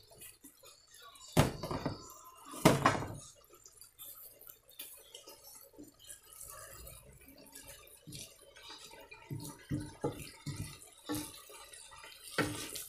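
Stir-frying in a wok: a wooden spatula scraping and tossing vegetables against the pan, with two loud clatters about one and a half and three seconds in and a run of light knocks near the end.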